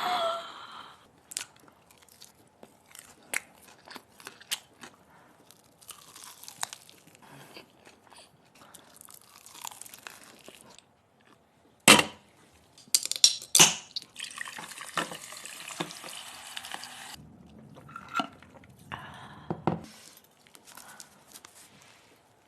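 Chewing and crunching on a chicken leg piece: scattered crunches and sharp clicks, with the loudest crack about halfway through and a burst of crunching just after it.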